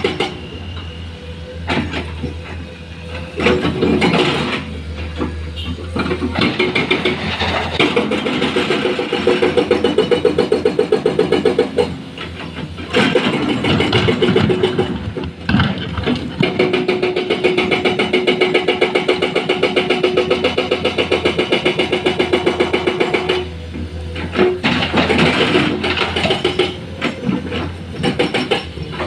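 Heavy diesel engines of construction machinery running, the level rising and falling with a rapid regular pulsing over a steady low hum, and easing off for short spells several times.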